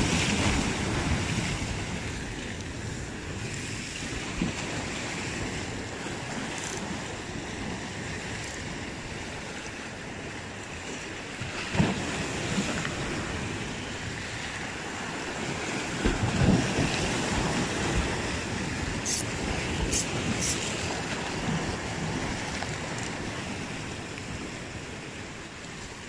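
Heavy surf washing against breakwater rocks, a steady rush of breaking waves that swells louder about 12 and 16 seconds in, with wind buffeting the microphone. A few faint clicks come near the end.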